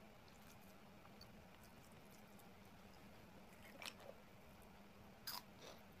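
Faint eating sounds: soft chewing and small mouth clicks, with two louder, crisp crunches, one about four seconds in and one about five seconds in.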